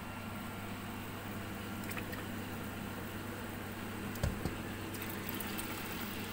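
A steady low hum, with a few faint clicks and two soft knocks a little after four seconds in.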